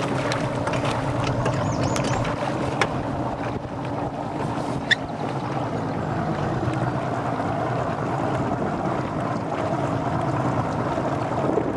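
Outboard motor on a Skeeter bass boat running steadily under way, with wind and water noise over it. A few short clicks sound in the first five seconds.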